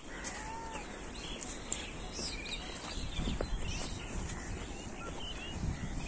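Several wild birds chirping and calling in short rising and falling notes, with a low wind rumble on the microphone underneath.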